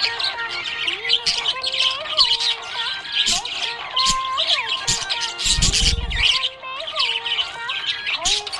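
Budgerigars chirping and twittering continuously in quick, high calls, over background music with held, gliding notes. A brief low rumble sounds a little past halfway.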